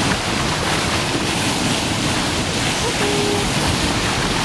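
Steady rush of water along the bow of a boat under way, mixed with wind buffeting the microphone. A brief faint tone sounds about three seconds in.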